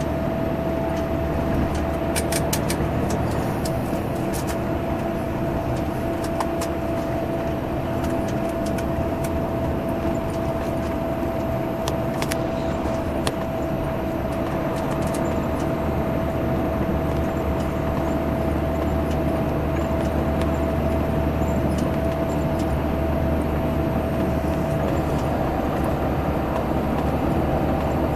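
Salutaris intercity bus number 13500's engine running steadily at highway speed, with road noise and a steady high whine over the engine drone. A few light clicks come about two seconds in and again near the middle.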